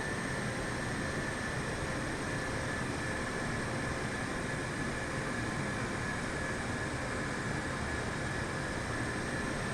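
Steady noise of a jet airliner: an even rush with a thin, high whine held at one pitch throughout.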